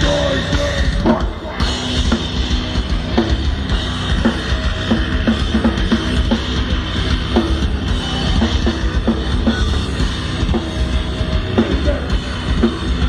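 Heavy metal band playing live through a festival PA: pounding drums with bass drum and cymbals over heavy, low-heavy guitar and bass.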